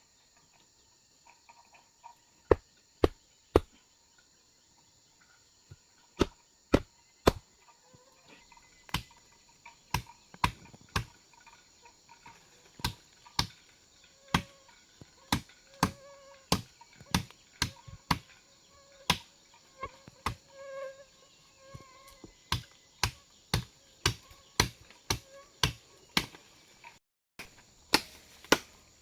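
Repeated sharp chopping strikes, roughly two a second in runs with a short pause early on, over a steady high drone of forest insects.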